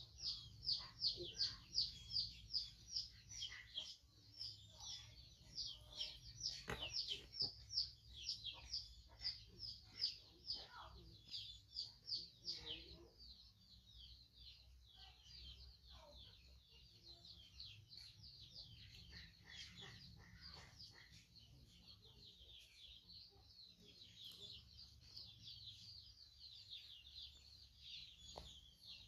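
A small bird chirping over and over, a few short, high, falling chirps a second. The chirps are loud for the first dozen seconds or so, then fainter as they go on.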